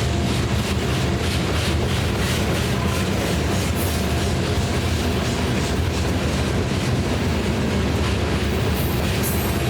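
A BNSF rock train's freight cars rolling past at steady loudness, with steel wheels clicking rhythmically over the rail joints.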